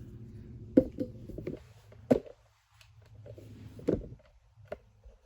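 K'nex plastic pieces being handled and clicked together by hand: three sharp clicks, about a second or two apart, with a few softer taps between.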